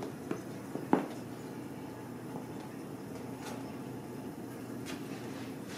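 Kittens knocking against a metal wire exercise pen: a few light clicks and knocks, the sharpest about a second in, over a steady low room hum.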